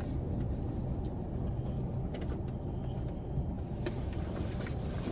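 Steady low rumble of an idling car engine, with a few faint clicks.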